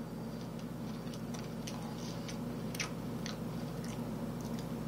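Faint crunching of a tortilla chip being chewed, small irregular crackles over a steady low hum.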